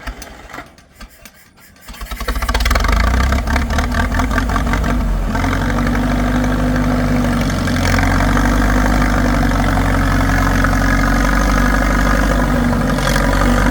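An engine cranks with a quick run of beats, catches about two seconds in and runs on steadily at idle.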